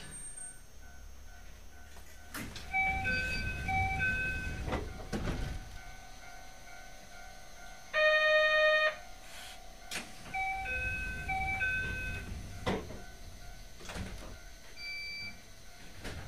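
Electronic door chime of a narrow-gauge commuter train standing at a station: a short multi-note chime plays twice, each time with low rumbling as the sliding doors work. Between the two chimes a harsh buzzer sounds for about a second, and several clunks come from the doors and the car.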